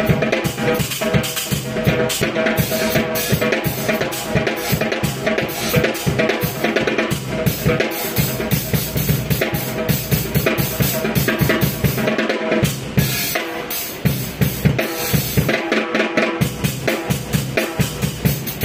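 Drum kit playing a busy, steady beat with bass drum and snare over a backing music track. The bass drum drops out briefly twice in the second half.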